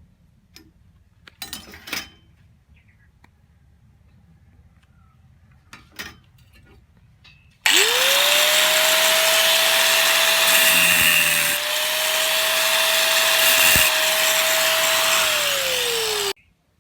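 A few light knocks and clicks, then about halfway through a handheld electric power tool switches on, spins up within a moment to a steady high whine with a loud hiss, runs for about eight seconds and is switched off, its pitch dropping just before it stops.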